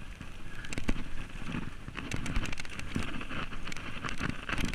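Downhill mountain bike rolling over a loose dirt track. The tyres crunch and the bike rattles, with frequent sharp clicks and knocks that come thicker from about halfway through.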